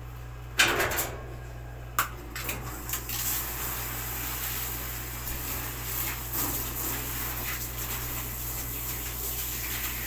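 A sharp knock and clatter against a stainless steel dog-bathing tub, with a few smaller knocks a second or two later, then water from a hose spraying and splashing over a lathered dog, rinsing off the shampoo. A steady low hum runs underneath.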